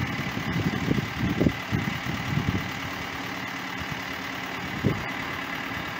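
Heavy vehicle engine idling steadily, with a faint high steady tone over it and a few low knocks in the first couple of seconds and once near the five-second mark.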